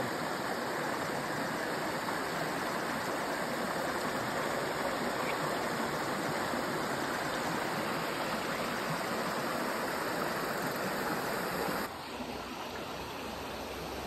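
Shallow mountain stream rushing steadily over rocks, dropping a little quieter near the end.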